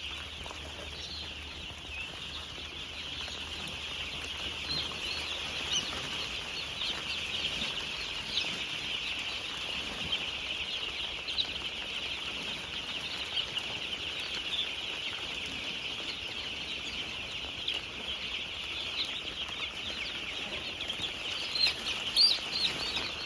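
A large flock of four-day-old broiler chicks peeping continuously, many high cheeps overlapping into a steady chorus, with a few louder peeps near the end.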